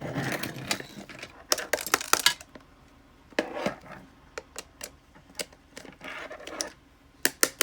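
Plastic lamp housing and small parts being handled during a teardown: scattered sharp clicks and taps of hard plastic and metal bits, with a few short scraping stretches.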